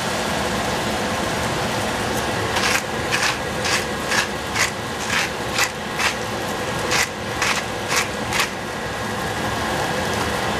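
Food frying in oil in a pan with a steady sizzle. About a dozen quick scraping strokes of a spatula against the pan, roughly two a second, start a couple of seconds in and stop a couple of seconds before the end.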